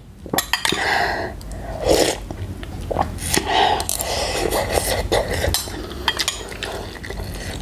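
A person slurping instant-noodle broth from a spoon, several noisy slurps about a second apart. A metal spoon clinks against the bowl in between.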